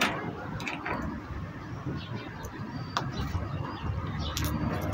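Low, steady outdoor background rumble with several sharp clicks and knocks, the loudest right at the start, another about three seconds in and one more near the end.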